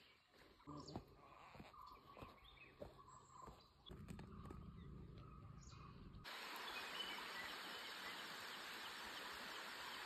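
Faint outdoor ambience with occasional bird chirps. Light clicks and rustling at first, a low rumble for about two seconds, then from about six seconds in a steady even hiss that changes abruptly at cuts.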